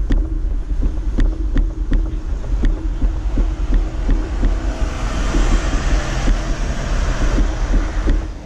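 Wind buffeting the microphone of a camera riding along on a moving bicycle: a heavy, gusting rumble with irregular sharp clicks and rattles every half second or so. A hiss builds from about four and a half seconds in and cuts off sharply near the end.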